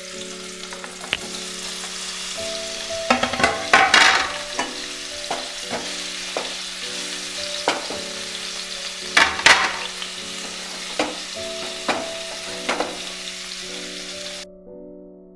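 Paneer cubes sizzling as they shallow-fry in a little hot oil in a nonstick kadai, with several knocks of the spatula and cubes against the pan. The sizzling cuts off near the end.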